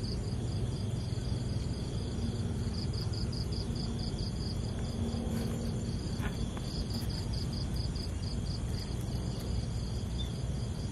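Insects chirping in a fast, even pulse, several chirps a second, with a steady high-pitched buzz beneath it and a low background rumble.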